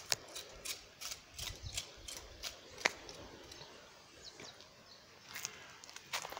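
Irregular sharp clicks and ticks over a faint outdoor background: about a dozen in the first three seconds, then a few more near the end.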